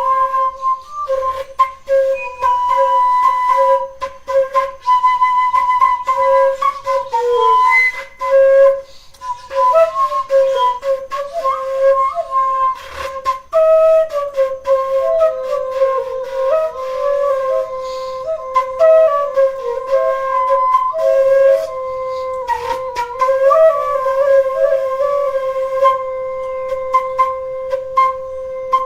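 Music: a flute-like wind instrument playing a single slow melodic line with slides and ornaments, settling on a long held note in the second half, with scattered sharp clicks.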